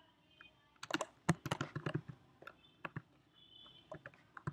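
Typing on a computer keyboard: a quick run of keystrokes about a second in, then a few scattered single keys.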